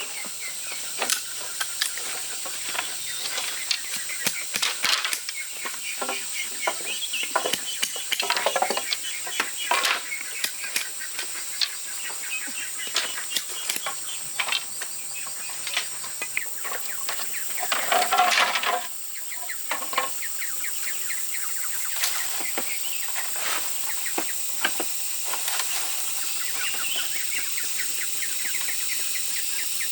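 Outdoor farmyard sound: birds and fowl calling, with scattered sharp knocks and clicks from work over a steady high hiss. A louder, busier stretch comes about two-thirds of the way through.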